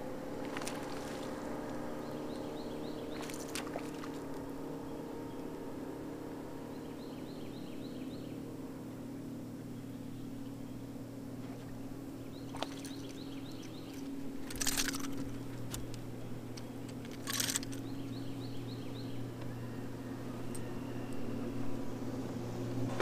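Bass boat's bow-mounted electric trolling motor running with a steady hum. A few short sharp noises cut through it, the two loudest a little past halfway.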